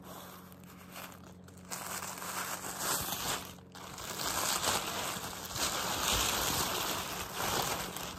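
Tissue paper rustling and crinkling as hands handle and fold it aside, starting about two seconds in, with a short lull a little past the middle.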